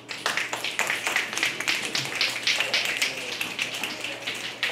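Audience applauding; the clapping breaks out all at once and keeps up densely.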